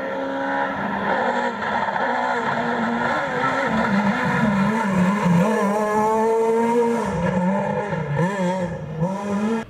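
Rally car engine running hard along the stage, its note rising and falling with throttle changes. It climbs in pitch and gets a little louder about halfway through as the car accelerates toward the microphone.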